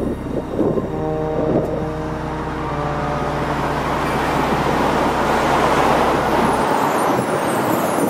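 Heavy city street traffic: a vehicle passing close swells to a peak in the second half, over a steady low hum that cuts off near the end.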